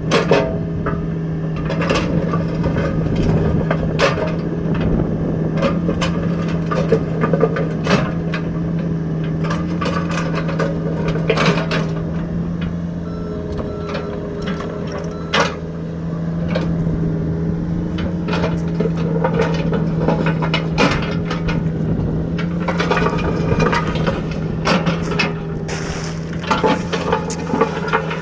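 Small excavator's engine running at a steady pitch, with frequent knocks, clanks and scraping as it works, dipping briefly about halfway through.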